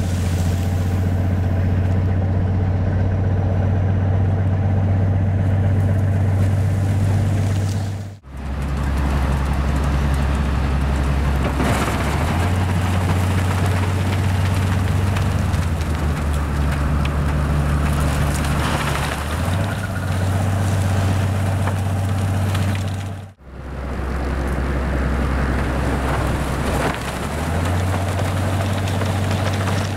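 Railway snow blower ploughing through deep drifts: a steady low engine drone under a constant hiss of thrown snow. The sound drops out briefly twice, about a quarter and three-quarters of the way through.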